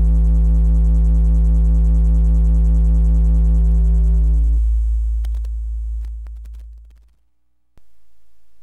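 A 55 Hz sine-wave test tone clipped by a semiconductor (transistor) amplifier, heard as a loud, steady, low buzzing tone. About four and a half seconds in the buzz drops away, and the low tone fades out over the next two seconds. A faint steady hum starts near the end.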